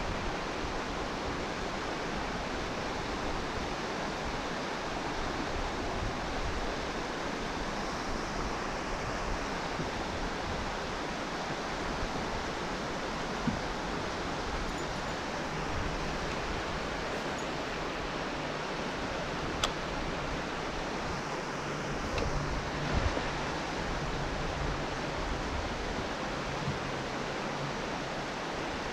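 Small waterfall pouring into a lake inlet: a steady rushing hiss of falling water, with a few faint ticks about halfway through and again later.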